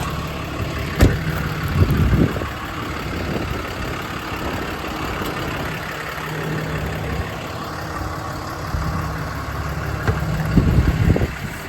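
A Ram 5500's 6.7-litre Cummins inline-six turbodiesel idling steadily. A sharp click comes about a second in, and short clattering handling noises come around two seconds in and again near the end.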